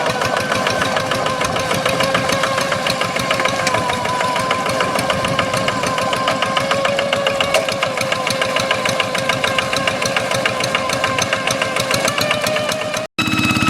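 Hand tractor's blue Kubota single-cylinder diesel engine running with a rapid, even firing beat and a wavering whine over it, the "ngiung ngiung" sound. It cuts off abruptly shortly before the end.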